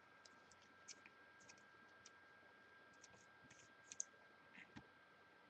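Near silence with scattered faint light clicks and ticks from trading cards and their boxes being handled, over a faint steady high-pitched hum.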